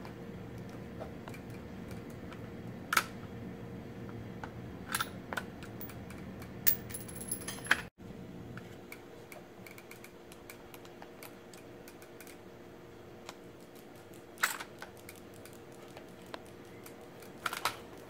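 Scattered sharp metallic clicks and clacks from the Tikka T3x rifle's bolt being worked by its custom extended bolt handle, with a quick run of clicks a little over six seconds in.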